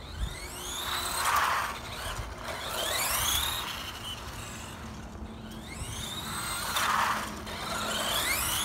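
Dromida SC4.18 1/18-scale RC short course truck's brushed electric motor and drivetrain running, with a high whine that rises in pitch each time it speeds up, about three times, and a rushing noise that swells about a second and a half in and again near the end.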